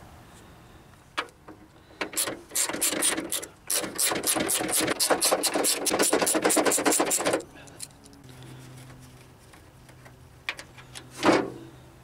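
Ratcheting screwdriver clicking rapidly for about five seconds as it backs a T25 Torx screw out of the door latch. A single knock about a second before the end.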